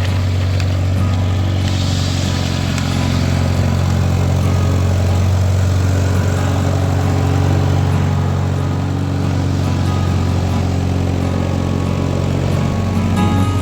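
An engine running steadily with a strong, even low hum.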